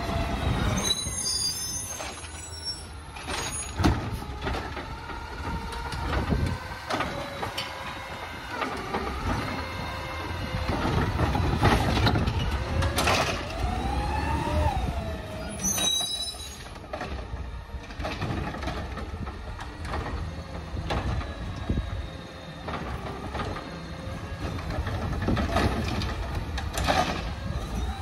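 Automated side-loader garbage truck working along the curb: its diesel engine runs steadily, with rising and falling whines as it revs to drive the lifting arm's hydraulics. Short high squeals come near the start and again about halfway through, and a few sharp knocks come from the arm and bins.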